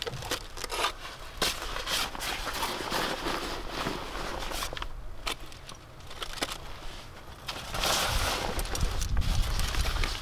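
A nylon backpack being rustled and packed by hand, with irregular clicks of metal climbing gear (cams and carabiners) being handled and pushed in. The rustling grows louder near the end.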